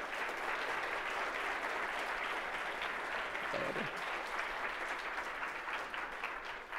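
Audience applauding: many hands clapping at a steady level, easing off slightly near the end.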